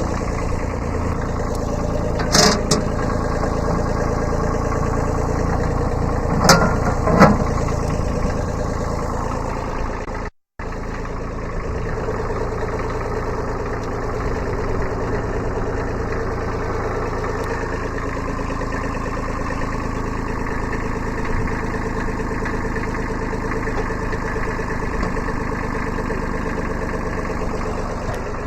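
Kubota B7100 subcompact tractor's three-cylinder diesel engine running steadily, with a few sharp knocks in the first eight seconds. The sound cuts out completely for a moment about ten seconds in, then the engine carries on.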